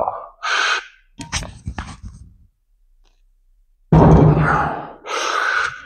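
A loaded barbell push-pressed from blocks, with a sharp exhale just under a second in and a metallic clank about a second in as the bar leaves the blocks. About four seconds in comes a heavy thud as the bar comes back down, the loudest sound, followed by another hard breath.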